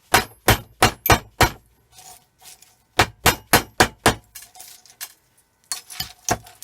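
Repeated sharp hammer blows on a small metal part, about three a second, in runs of four or five with short pauses between. A cartridge fuse is being broken open to get at its brass and copper.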